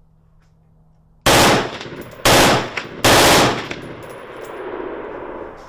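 M16 rifle firing fully automatic in three short bursts of rapid shots, each about half a second long and a little under a second apart, with an echo trailing off after the last.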